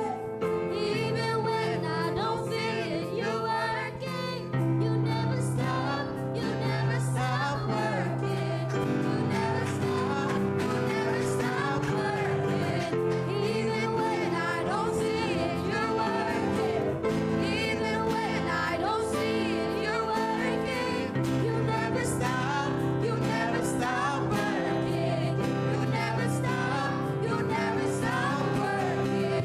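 Live gospel worship music: long held chords under singing voices.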